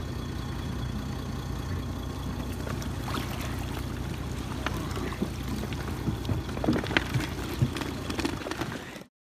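Small boat's engine idling steadily, with water sloshing and splashing against the hull and scattered knocks and rustles as wet fishing net and floats are hauled over the inflatable tube, busier in the second half. The sound cuts off suddenly near the end.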